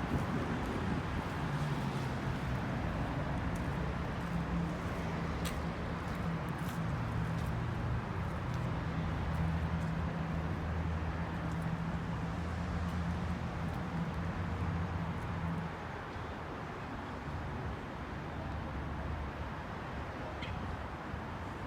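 A motor vehicle's engine running steadily over street noise, a low hum that stops about sixteen seconds in.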